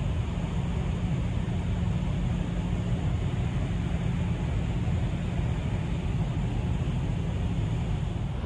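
Steady low rumble with a hiss above it from a large car ferry's engines and deck machinery, heard from the open deck as the ship gets under way from its berth.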